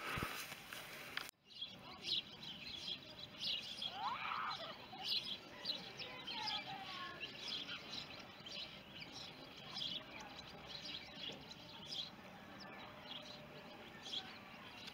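Songbirds chirping and calling outdoors: many short, high chirps at irregular intervals, with a few gliding calls, over a faint steady background. They follow a short stretch of hiss that cuts off abruptly about a second and a half in.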